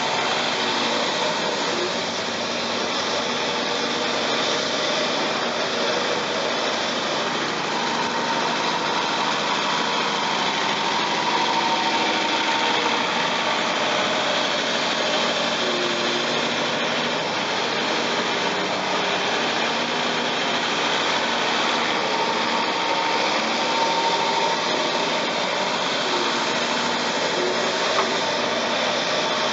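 CAT 352F hydraulic excavator's diesel engine running steadily at close range as the machine digs, a constant heavy-machinery noise without pauses.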